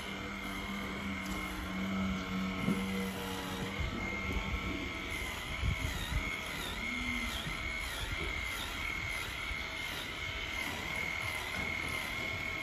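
Handheld electric tail brush running with a steady high whine that sags briefly about twice a second from about halfway on, while it works on a cow's tail. A lower hum fades out about a third of the way in, and there are a few low bumps near the middle.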